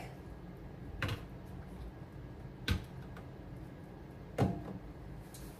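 Three short knocks, about a second and a half apart, as objects are handled and set down on a kitchen counter by a stainless steel sink; the last knock rings briefly. A faint low hum runs underneath.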